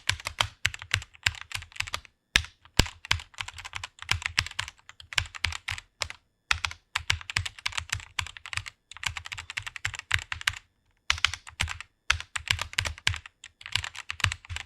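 Fast typing on a computer keyboard: rapid runs of key clicks broken by short pauses every second or few.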